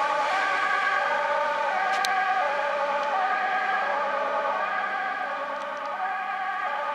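Fire engine's two-tone siren alternating between a high and a low note about once a second, growing slightly fainter near the end.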